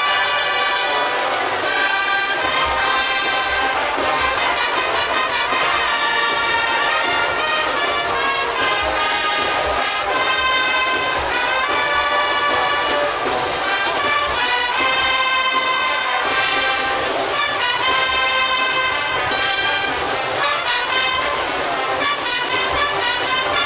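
A Spanish Holy Week agrupación musical, a brass band, playing a processional march. The music is loud and continuous, with sustained melody lines over a moving accompaniment.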